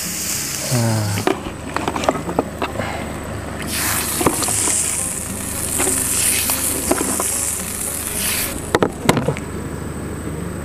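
Cooking in a wok on a portable gas stove: the frying sizzle cuts off right at the start as water goes in, then scattered clicks and knocks as meat pieces are taken from a cooler box and dropped into the wok. A hissing sizzle rises for about four seconds in the middle as the meat cooks, and sharp knocks near the end as a metal spatula stirs it.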